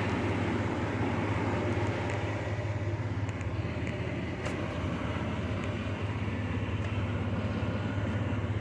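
A vehicle engine running steadily at idle, with a low, even hum.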